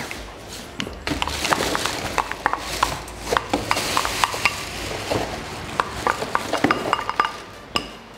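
Spatula scraping out a ceramic bowl held over a stainless-steel mixer bowl, the two bowls and the spatula clinking and knocking together in a quick irregular run of light taps with brief ringing.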